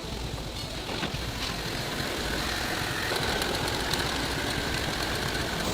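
Heavy industrial machinery running steadily, a continuous engine-like rumble with a faint steady whine that comes in about two seconds in.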